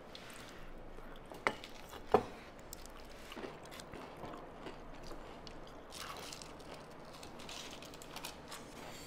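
Quiet eating sounds: a fried onion ring being bitten and chewed, with small clicks and knocks of food and dishes being handled. Two sharper clicks come about one and a half and two seconds in.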